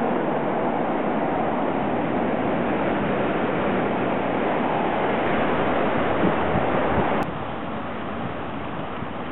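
Road traffic inside a tunnel: a steady loud rush of cars passing. About seven seconds in it cuts off suddenly to a quieter rush of fountain jets splashing into a pool, with wind on the microphone.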